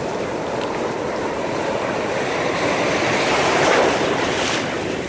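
Ocean surf washing and breaking around the microphone at water level, swelling about three and a half seconds in to a wave splashing right at the microphone.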